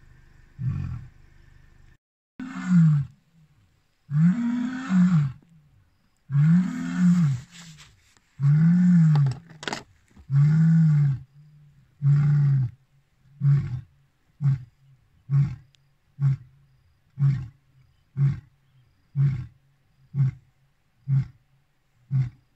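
Male lion roaring: a full roar bout of several long, deep roars that rise and then fall in pitch, followed by a run of short grunts about one a second.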